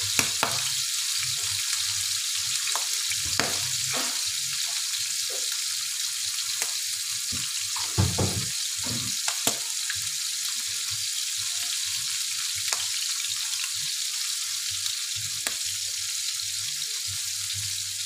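Salmon steaks shallow-frying in hot oil in a pan: a steady sizzle with scattered pops and crackles as the oil spatters, one louder pop about eight seconds in.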